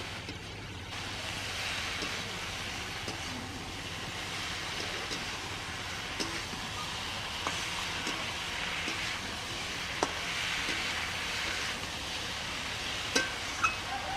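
Cauliflower curry sizzling steadily in a pan over a cooking fire, with a few sharp clicks of a utensil, one about ten seconds in and several near the end.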